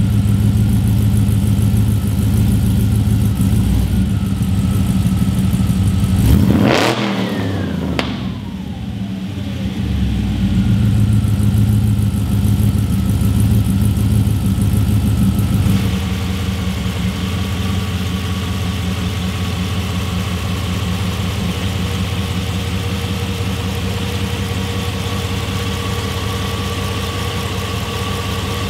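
GM Performance LS3 V8 in a 1962 Corvette restomod idling, revved sharply once about six seconds in, then dropping back to a steady idle.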